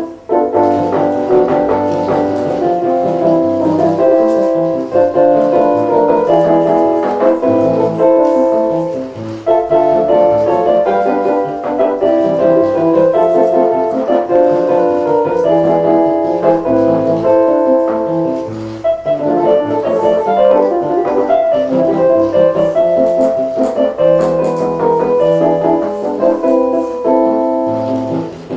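Piano playing a waltz, many notes at once in a steady, flowing melody.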